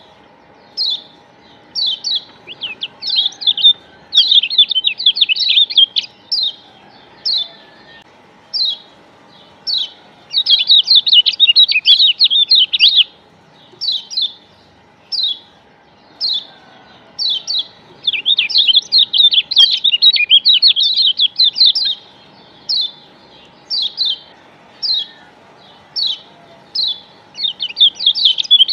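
Lombok yellow white-eye (kecial kuning, a Zosterops white-eye) calling. Short high chirps come about once a second, broken three or four times by fast twittering runs a few seconds long. It is a lure call ('pancingan') meant to set other white-eyes singing.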